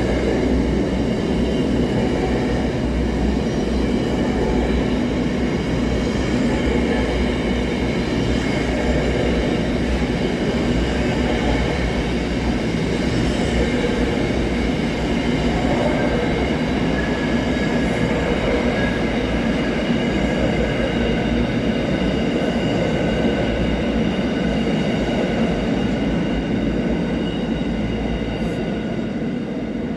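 Freight train rolling past, a steady rumble of wagons on the rails with a faint high squeal from the wheels.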